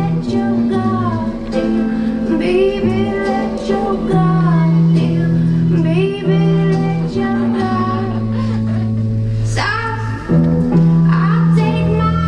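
Recorded song with a lead singing voice over held bass notes and guitar, with a brief break in the music about ten seconds in.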